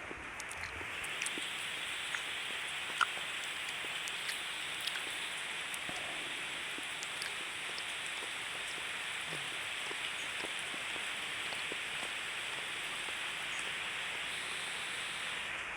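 Heavy rain falling steadily, an even noisy hiss, with one sharp click about three seconds in.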